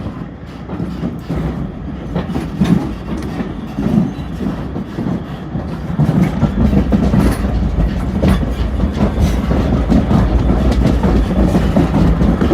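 Heritage railway carriage running along the line, heard from inside: wheels clicking over the rail joints over a low rumble, growing louder about six seconds in.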